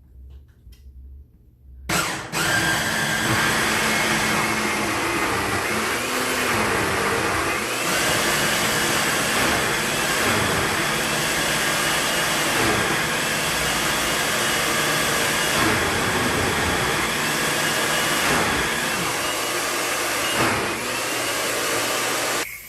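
Electric blender motor running at full speed, pureeing beans. It starts about two seconds in, its pitch repeatedly dipping and recovering as the load shifts, and cuts off abruptly near the end.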